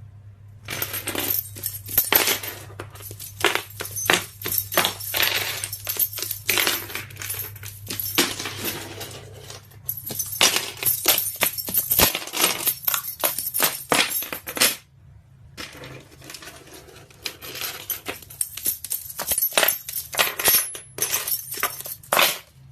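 Rapid, irregular clinking and rattling of small hard objects, in three long runs broken by short pauses about ten and fifteen seconds in, over a low steady hum.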